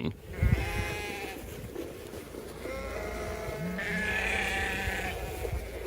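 Sheep bleating, two long calls, the second longer and brighter toward its end. A low thump or two sounds near the start.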